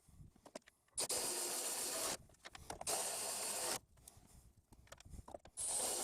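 Cordless impact wrench run in three short bursts of about a second each, about a second in, near the middle and just before the end, running down the upper strut mount nuts. Small clicks of socket and hardware handling come between the bursts.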